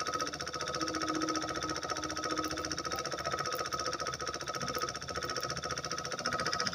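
Miniature diesel engine running steadily with a fast, even beat, driving a small water pump.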